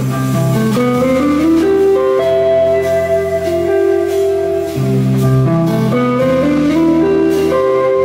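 Live instrumental trio of two electric guitars and a drum kit playing: long, overlapping guitar notes that step up and down in pitch, with soft cymbal strokes underneath.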